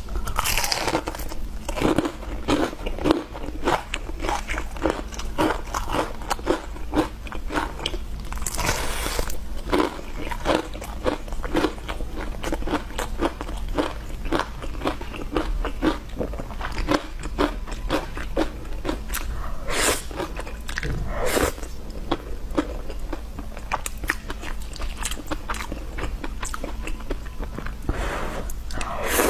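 Close-miked eating: crunchy food being bitten and chewed, a steady stream of quick crisp crunches and mouth clicks, with a few louder bites along the way.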